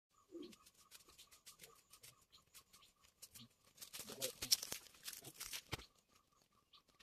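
Footsteps crunching and crackling on dry leaf litter and dirt as people walk, loudest around four to six seconds in. Behind them, a faint high pulse repeats steadily about four times a second.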